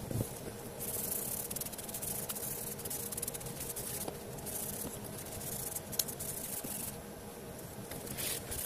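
Cloth rubbing dark stain into a small wooden handle: a dry, scratchy hiss of wiping strokes starting about a second in and stopping near the end, after a light knock at the start.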